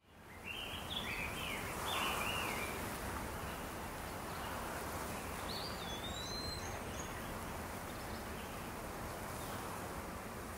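Outdoor ambience fading in: a steady background hiss with small birds chirping, a quick run of chirps in the first few seconds and a few whistled calls around the middle.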